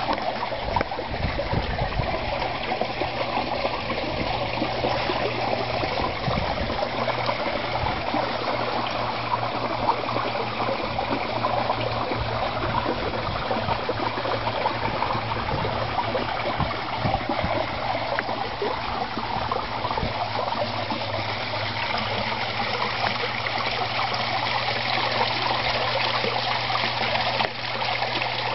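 Garden pond water splashing and trickling steadily where falling water spray lands on the surface, with a steady low hum underneath.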